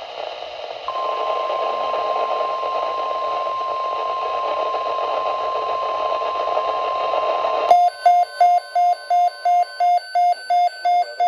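Weather radio static hiss with a steady tone near 1 kHz, the NOAA Weather Radio alert tone, coming in about a second in. About eight seconds in, the hiss gives way to a loud, rapid electronic beeping alert, about three beeps a second.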